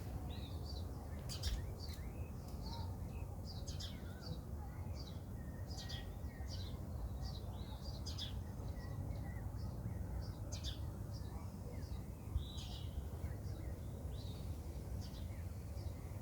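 Several birds chirping in short, repeated calls over a steady low background rumble.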